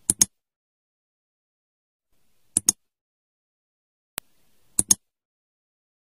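Computer mouse-click sound effects over dead silence: three quick double clicks, one at the start, one about two and a half seconds in and one near the end, with a lighter single click just before the last pair.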